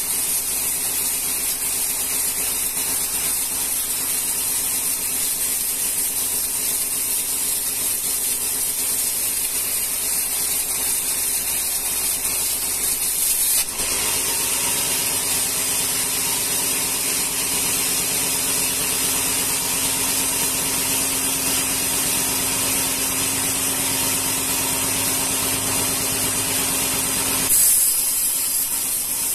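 Band sawmill blade cutting lengthwise through a rengas log, a steady hiss over the machine's hum. Near the end there is a brief louder burst, after which the low hum drops away.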